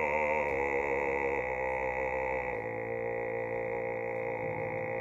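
An oktavist's very deep bass voice holding one low sung note, with a slight waver, in the range of a low G. About halfway through, the lowest part of the tone shifts as the note changes.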